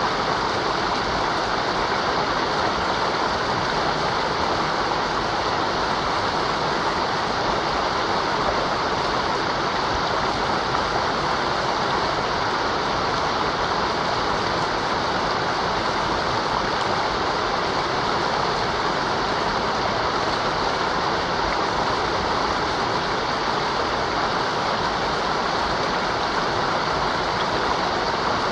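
Mountain river rushing over rocks: a steady, even roar of running water.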